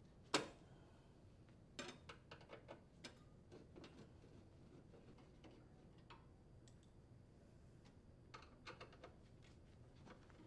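A hand Phillips screwdriver unthreading screws from a sheet-metal access cover: faint clicks and ticks as the bit seats and the screws turn, with one sharper click about half a second in and small clusters of ticks around two to three seconds in and near the end.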